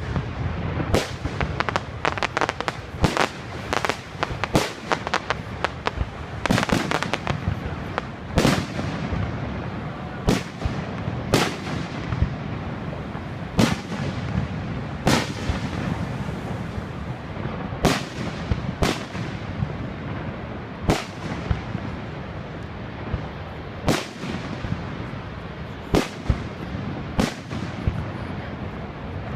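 Aerial fireworks shells bursting with sharp booms. A rapid cluster of bursts comes in the first few seconds, then single booms about every second or two.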